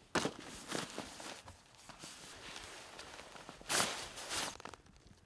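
Rustling and scuffing of nylon camping gear as a tent, sleeping bag and stuff sacks are handled and packed into a large hunting backpack, with one louder swish about four seconds in.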